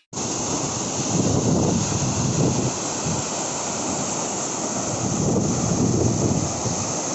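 Waterfall's water pouring down, a steady loud rushing, with wind buffeting the microphone.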